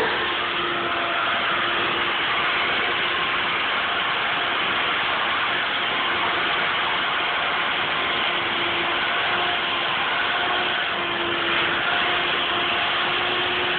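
Shop vacuum motor running steadily, air rushing through its hose, with a faint hum that comes and goes.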